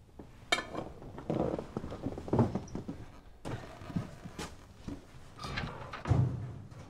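Irregular knocks and clinks, one of them ringing briefly about half a second in, with rustling between them.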